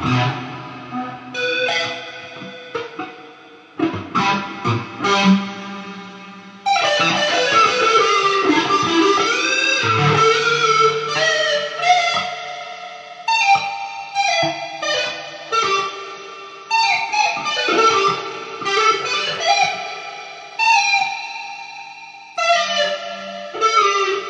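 Guitar playing: plucked notes and chords that ring out and fade. About a third of the way in comes a longer stretch of held notes that bend and waver.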